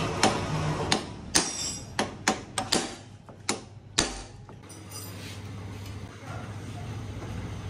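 Sharp metallic clicks and knocks of hand tools against motorcycle parts during dismantling, about nine of them in the first four seconds. After that a steady low hum.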